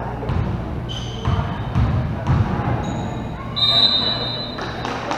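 A basketball being dribbled on a gym floor, with several bounces in the first half, and sneakers squeaking on the hardwood. The loudest squeak comes a little past halfway.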